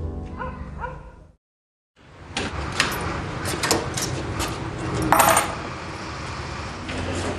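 Background music ends about a second in, followed by a brief silence. Then a door is unlocked and opened: keys jingling, the lock and handle clicking and knocking several times, with a brighter metallic jangle of keys a little past halfway.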